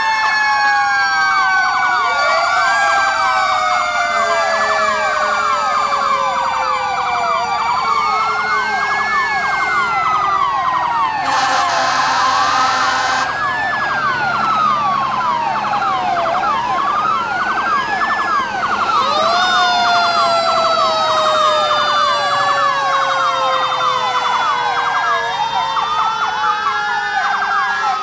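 Several fire engine sirens sounding at once: electronic wails sweeping up and down every two to three seconds, layered over long, slowly falling whines. A dense stretch of fast sweeps follows a two-second burst of noise near the middle.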